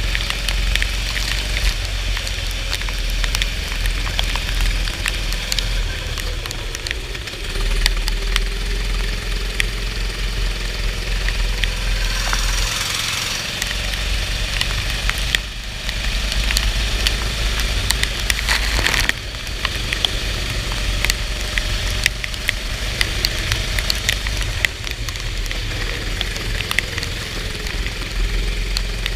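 Go-kart engine running at race speed, its pitch rising and falling, under a constant crackling hiss of rain and water spray and a heavy low rumble.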